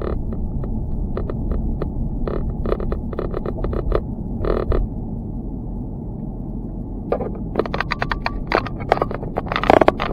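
Loose GoPro camera mount rattling and knocking in irregular clusters over a steady low rumble, with the rattles thickest and loudest near the end.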